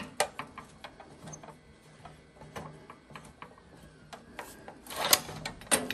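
A pipe clamp being released on a lawn edger's spring-loaded rod assembly: a string of irregular metallic clicks as the clamp lets go. It ends with a louder clatter of metal as the rod and spring slide out about five seconds in.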